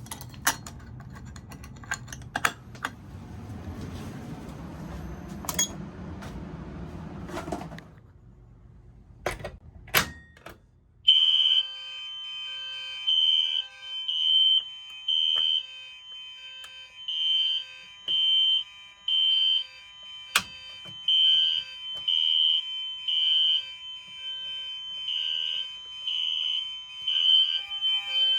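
Fire alarm devices sounding as a rough, noisy buzz with scattered clicks, which stops about eight seconds in. About eleven seconds in, a loud, high-pitched electronic fire alarm tone starts pulsing in the temporal-3 evacuation pattern (three beeps, then a pause), over steady lower tones.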